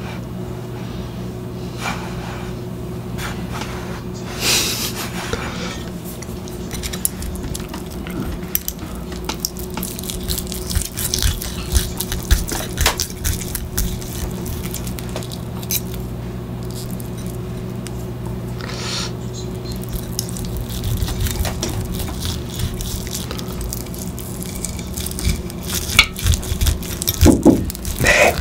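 Knife and fork sawing through the skin and meat of an oven-roasted turkey leg, the cutlery clicking and scraping against the plate in irregular bursts that grow busier and louder near the end.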